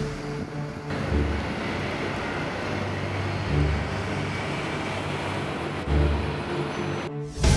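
Promo background music of sustained low tones with a deep bass swell about every two and a half seconds, under a steady rushing noise like traffic. A swoosh sweeps through near the end.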